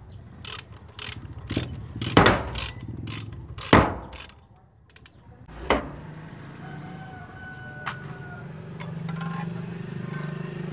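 A run of sharp metal knocks and clanks, about nine in the first six seconds at uneven spacing, as satellite dish mounting hardware is handled and fitted onto its wall bracket. A steady low hum follows.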